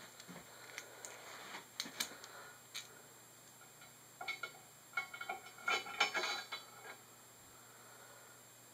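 Small metal hardware clinking and clicking as it is handled and fitted onto an aluminium extrusion frame: a few scattered clicks, then a cluster of short ringing metallic clinks from about four to seven seconds in.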